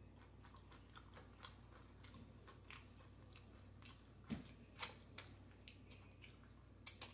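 Faint mouth sounds of a person chewing a mouthful of taco salad with her mouth closed: scattered soft wet clicks and smacks, a few louder ones in the second half.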